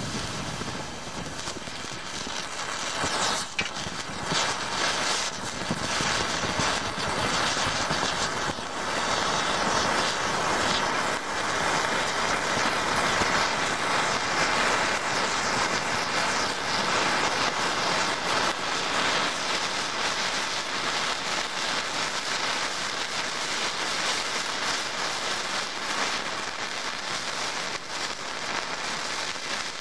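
Calcium sulfate and aluminium thermite brick burning: a steady rushing hiss with constant fine crackling, growing louder about four seconds in and holding.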